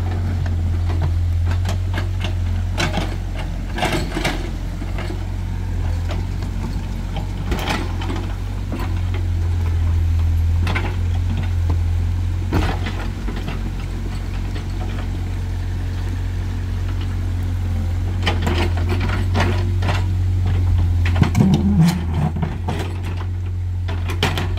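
Excavator's diesel engine running steadily under load, with repeated clanks and scrapes as the bucket digs and prys at rocks and soil.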